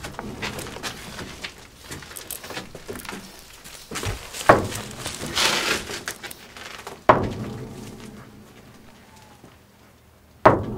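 Three heavy thuds with an echoing tail, about three seconds apart, the last the loudest, over low rustling and a brief hiss after the first.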